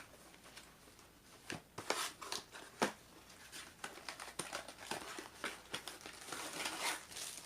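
Packaging being handled and unpacked: irregular crinkling and rustling with scattered sharp clicks.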